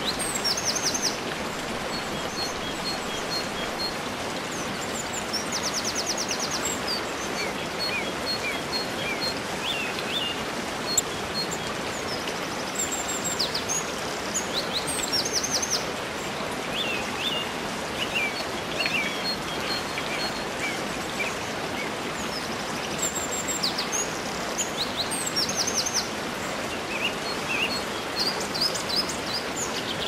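Steady rush of falling water from a mountain waterfall and stream, with small birds singing over it throughout in repeated short chirps and quick trills.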